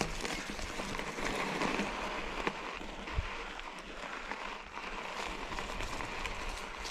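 Trek Fuel EX 7 mountain bike moving over rough forest ground: steady tyre and brush noise with scattered clicks and rattles from the bike, and one sharper knock about three seconds in.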